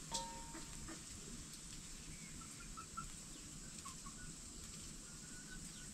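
Faint, short bird chirps over a steady high hiss, with a single light clink that rings briefly just after the start.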